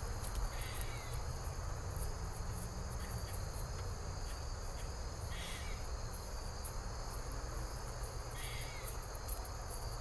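Steady chorus of insects with three short calls, about a second in, around the middle and near the end, over a low rumble of wind on the microphone.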